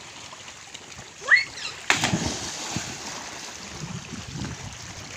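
A child's short high cry, then about two seconds in a sudden splash as a child hits the sea water, followed by churning and lapping water.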